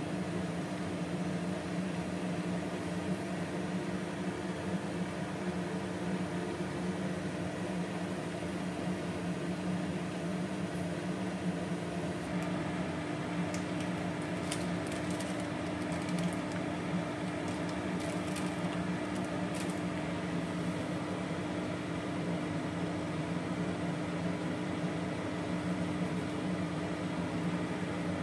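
Steady electrical hum with fan noise, a low drone under an even whir. Partway through there are faint light scrapes and ticks of a wooden spatula stirring milk in a steel pot.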